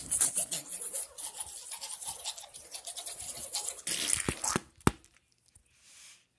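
Scratchy rubbing with many small clicks, typical of fingers and a phone handled right against the recording microphone. A louder scrape comes about four seconds in and a sharp click just before five seconds, then it goes faint.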